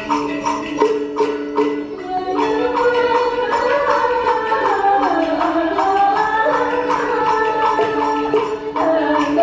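Vietnamese traditional music of the kind played for water puppet theatre. About the first two seconds are rhythmic percussion strokes over a steady tone. After that a wavering, sliding melody line comes in over a held low note.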